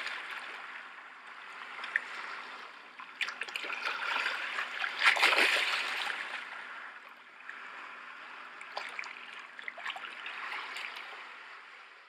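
Shallow water washing and splashing, like small waves on a shore, with little splashes and trickles throughout. It swells loudest about five seconds in and fades away near the end.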